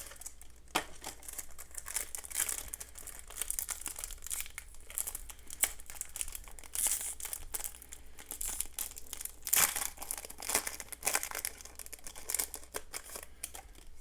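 Foil Yu-Gi-Oh! booster pack being torn open and crinkled by hand, a run of irregular crackling with several sharper rips, the loudest about ten seconds in. The cards are shuffled out of the wrapper.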